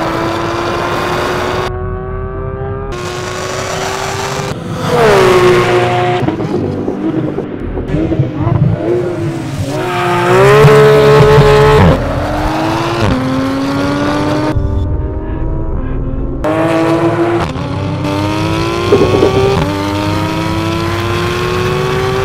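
Porsche 911 GT3's naturally aspirated flat-six with an Akrapovic exhaust, accelerating hard at high revs. Its pitch climbs through the gears and drops at each shift, in several cut-together passes. The loudest, falling-then-rising stretch comes about halfway through.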